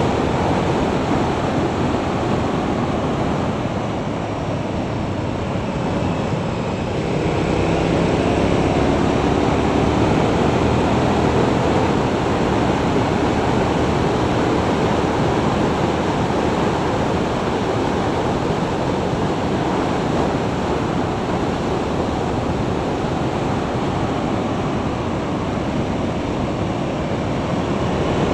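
Heavy wind rushing over the microphone of a camera on a motorcycle at road speed, with the motorcycle's engine underneath. The engine's pitch rises for a few seconds about a quarter of the way in as the bike accelerates.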